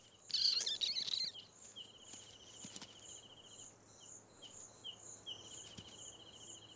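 Insects trilling: one buzzes in long and short bursts at a steady pitch while another chirps regularly, about twice a second, at a higher pitch. A louder rasping noise lasts about a second near the start.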